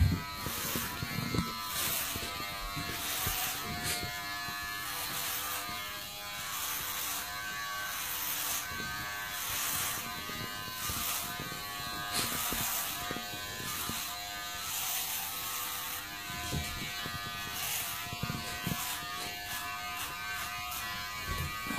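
Electric hair clippers buzzing steadily as they shave hair off a head, the buzz swelling and dipping with each pass through the hair.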